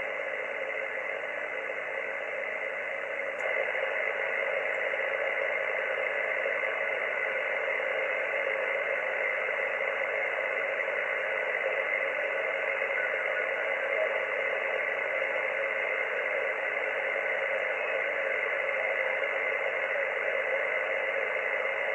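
Xiegu G90 HF transceiver receiving 80-metre band noise: steady static hiss through its speaker, held inside the radio's narrow audio passband. It gets louder about three and a half seconds in.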